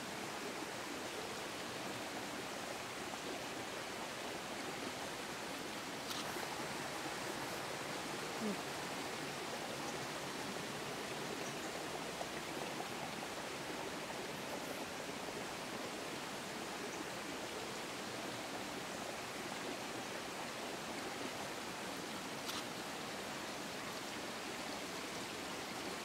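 Running water of a forest stream, a steady even rushing, with two faint clicks about six seconds in and near the end.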